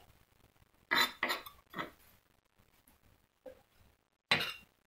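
A kitchen knife and dishes being handled on a counter: a few separate clinks and knocks, with the loudest one near the end.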